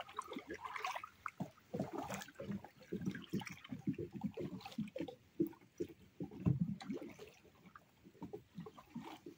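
Lake water lapping and gurgling in small, irregular splashes at the shallow edge, thinning out after about seven seconds.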